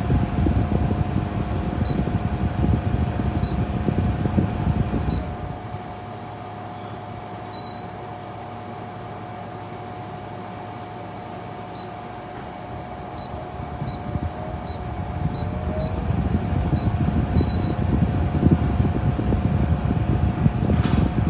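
Small personal air cooler fan running with a steady whine and rushing airflow, with a string of short high beeps as its control buttons are pressed. The airflow gets quieter about five seconds in and builds back up over the last several seconds.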